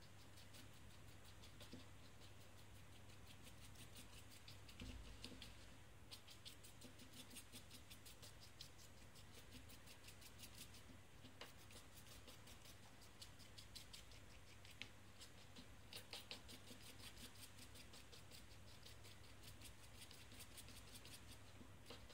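A thin stick scratching and tapping inside a small plastic cup of silicone as it is stirred: faint, rapid fine ticks that come in runs of a few seconds with short pauses between.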